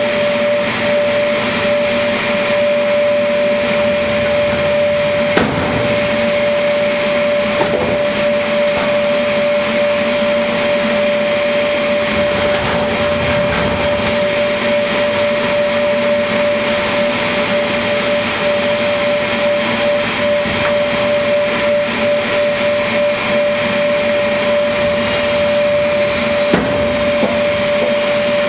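Automatic MDF board-cutting machine running: a steady high whine over dense mechanical noise, with a sharp knock about five seconds in and another near the end.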